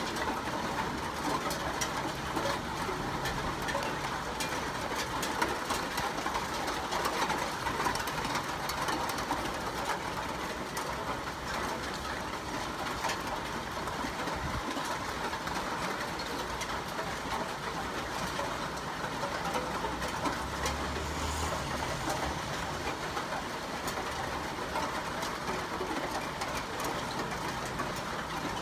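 Steady rain falling, a dense stream of small drop ticks over an even hiss.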